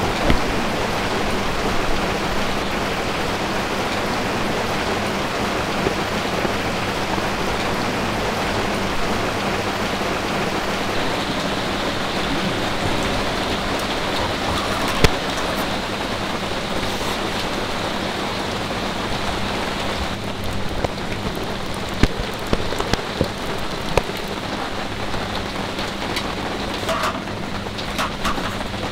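Steady rain falling, with a few sharp clicks and knocks over it.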